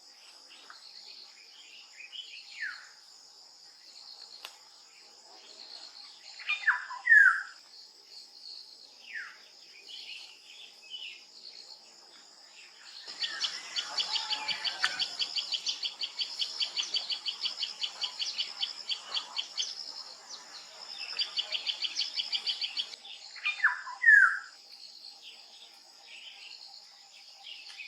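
Wild birds calling over a steady, high insect drone. There are short falling whistled notes, and a loud sharp two-part call twice, about a quarter of the way in and again near the end. In the middle comes a long fast rattling series of roughly six notes a second, which stops and briefly resumes.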